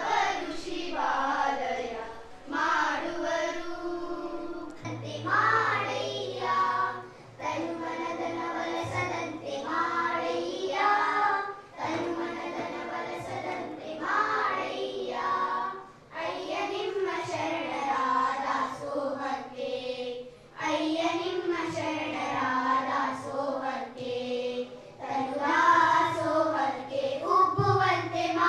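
A group of schoolgirls singing a song together into a handheld microphone, in phrases with short breaths between them.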